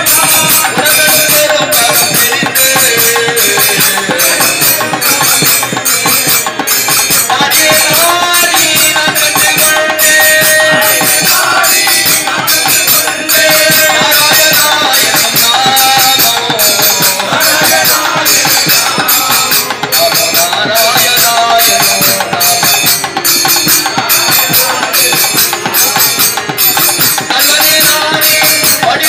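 Tamil devotional bhajan: voices singing a melodic chant over a steady, even beat of jingling percussion.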